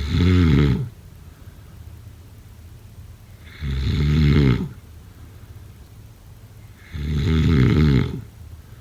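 A person snoring: three snores about three and a half seconds apart, each lasting about a second.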